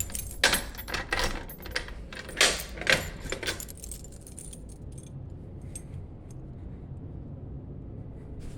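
Keys and metal parts clicking and rattling as a Simplex 2099 fire alarm pull station is reset, a run of sharp clicks over the first three and a half seconds; then only a low steady hum.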